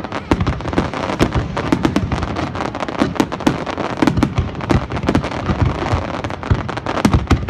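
Aerial fireworks going off: a rapid, irregular stream of sharp bangs and crackles, many overlapping, with no pause.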